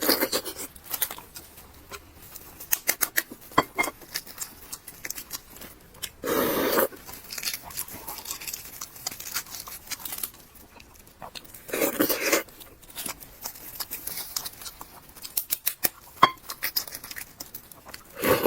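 Close-miked eating sounds: soup being slurped in three longer noisy sips, about 6 s in, about 12 s in and at the very end, with many small wet mouth clicks and chewing noises between them.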